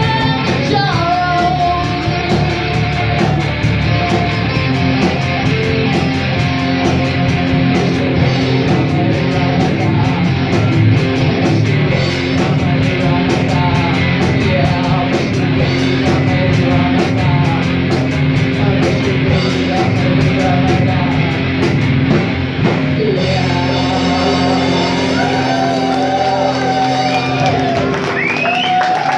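Live rock band playing: a woman singing lead over electric guitars, bass and a drum kit with a steady cymbal beat. Near the end the cymbals stop and held, sliding vocal and guitar notes ring on.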